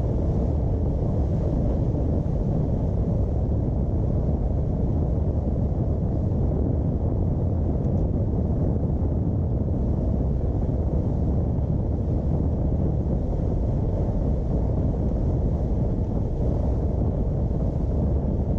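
Wind buffeting the microphone: a loud, steady, low rumble with no clear pitch.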